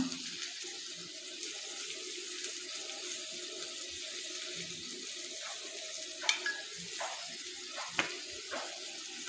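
Steady kitchen hiss while cooking oil is poured from a bottle into a glass bowl of marinade paste, with a few light clicks and taps from the bottle and bowl near the end.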